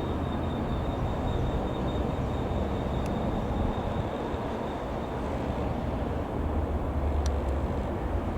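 Beagle B121 Pup 150 light aircraft's single piston engine running with a steady low drone.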